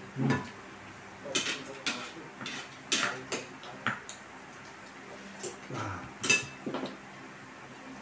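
Metal cutlery clinking and scraping against plates and a serving dish: a scatter of short sharp clinks, the loudest a little after six seconds in.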